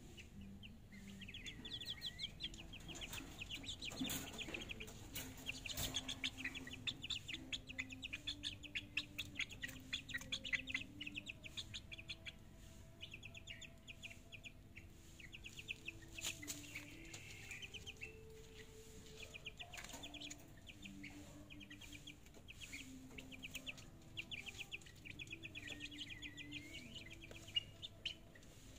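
Month-old chicks peeping in fast trilling runs of short high calls, with a few knocks now and then.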